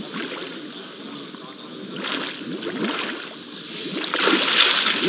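Scuba divers' exhaust bubbles breaking the water surface, gurgling over lapping water, in two surges: one about two seconds in and a louder one about four seconds in.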